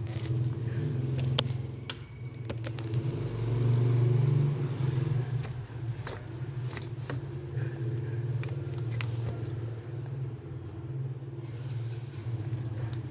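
Slime being handled, giving scattered sharp sticky clicks, over a steady low hum that swells about three to five seconds in.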